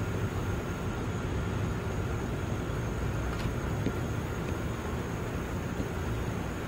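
Steady low rumble of outdoor background noise with no distinct events, apart from one faint tick about three and a half seconds in.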